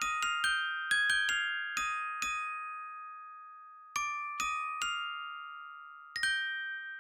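Instrumental music: a slow, high melody of single struck, bell-like notes, each ringing and fading. The notes stop for over a second in the middle, then a few more follow.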